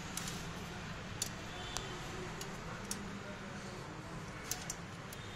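A handful of sharp, irregularly spaced metallic clicks from a small spanner on the 8 mm bolts of a Royal Enfield Bullet 350's oil-drain plate as the plate is tightened back on.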